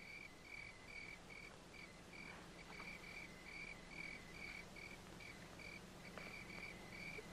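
Crickets chirping faintly and steadily, about two or three chirps a second, over a low steady hum.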